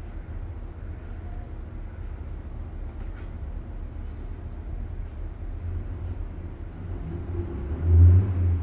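Steady low rumble, swelling to a brief louder peak about eight seconds in.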